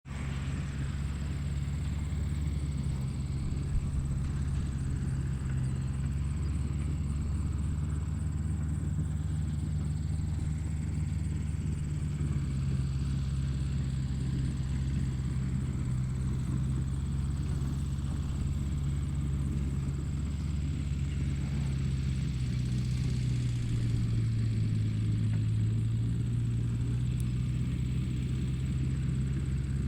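Tractor engine running steadily at a low, even pitch, its note shifting slightly a couple of times.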